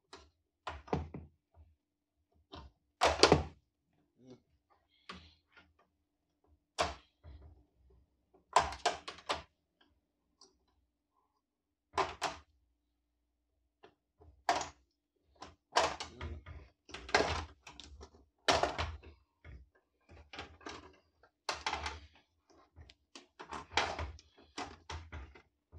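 Plastic frame clips of an LED TV panel being pried and popped loose by hand: irregular sharp snaps and knocks of plastic. They come few and far between at first, with the loudest about three seconds in, and come quickly one after another in the second half.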